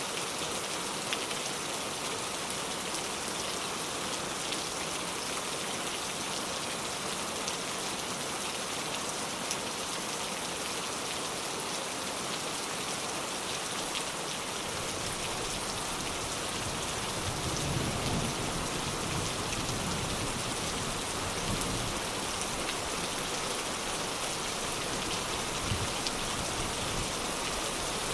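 Steady rain falling, an even hiss of drops hitting surfaces. About halfway through, a low rumble of distant thunder rises and rolls on to near the end.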